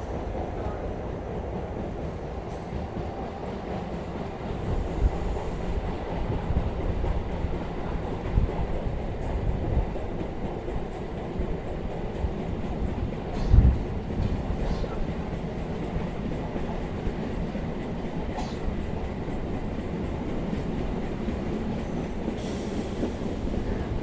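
Electric local train (EMU) running at speed, heard from outside the coach's side: a steady rumble of wheels on the track, with irregular heavier thumps, the loudest a little past the middle.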